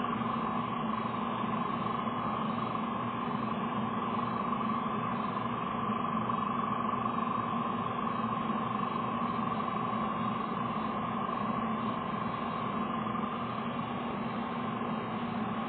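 Steady hiss with a constant hum of two tones, one low and one higher, and no distinct events or shots.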